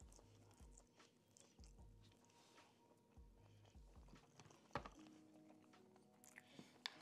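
Faint close-miked chewing of a mouthful of soft noodles, in a few slow bouts. There is a sharp click a little under five seconds in.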